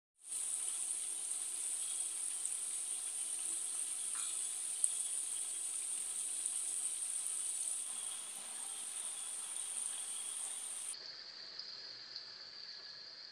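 Chicken pieces deep-frying in hot oil: a steady, dense sizzle. About eleven seconds in it cuts abruptly to a quieter, duller sizzle.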